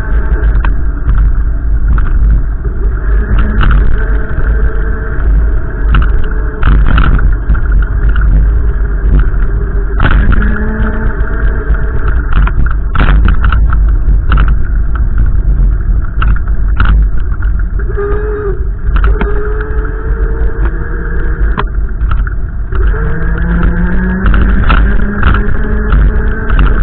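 Wind buffeting the microphone in a loud, constant rumble, over the running of a car engine whose pitch slowly rises and falls.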